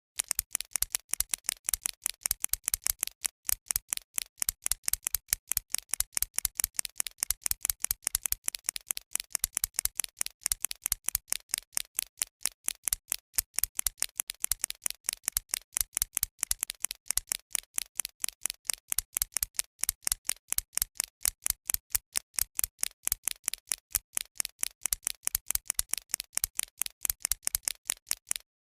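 Pencil ticking: a steady, even run of sharp ticks, about four to five a second.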